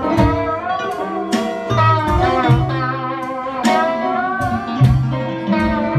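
Live band playing a slow blues instrumental fill between sung lines: an electric bass line under a lead melody of bending, sliding notes.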